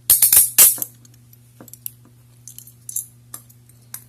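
Steel Bianchi handcuffs being handled: a quick run of loud metallic clicks and jingles in the first second as the ratchet and chain move, then scattered lighter ticks.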